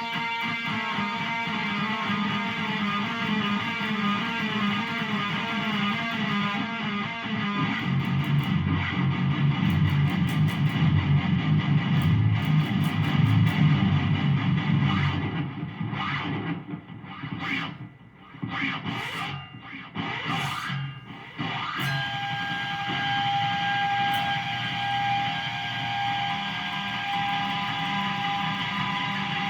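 Electric guitar tuned to drop F#, played through distortion and effects. Fast repeating notes give way about eight seconds in to heavier, louder low riffing. This breaks into choppy stops and starts in the middle, then settles into ringing chords with one long held high note from about two-thirds of the way through.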